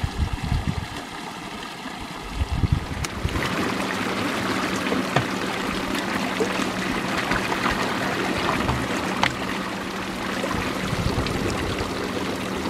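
Water running from a stone spring fountain's spout and splashing into a pool, with a few low thumps in the first seconds. About three seconds in it becomes much louder and closer as water pours from the spout and from a plastic bottle, then into a large plastic bottle being filled at the spout.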